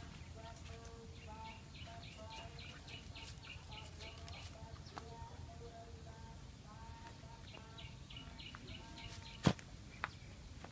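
Birds chirping in short repeated notes over a low steady rumble, with a sharp click about nine and a half seconds in and a fainter one just after.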